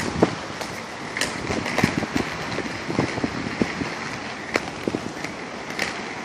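Steady outdoor city-street noise with irregular knocks and clicks from a phone being handled and carried along a sidewalk.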